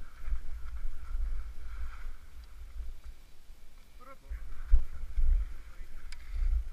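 Wind buffeting a helmet-mounted camera's microphone while skiing downhill, heard as an uneven low rumble that swells loudest about two thirds of the way through, over a faint hiss of skis sliding on snow.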